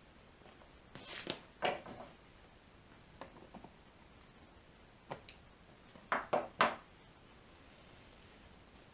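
Handling noises from stretching a vinyl cover over a motorcycle seat base: scattered short rustles and knocks, with three sharp ones in quick succession about six seconds in.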